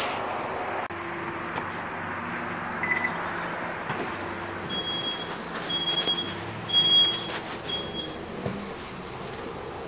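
Electronic beeps inside a Scania K320UB city bus standing at a stop, over the low running hum of the bus: a short beep about three seconds in, then four evenly spaced high beeps about a second apart.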